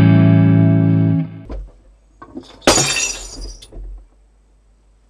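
Distorted electric guitar sustaining a held note through an amp, cut off just over a second in, followed by a few small scrapes and a harsh, noisy burst lasting about a second near the middle.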